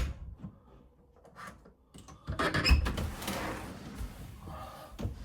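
A door being worked while the bolt is tested against the strike plate: a sharp click, a light knock, then a loud thud about two and a half seconds in with a rattle dying away, and a few smaller knocks near the end.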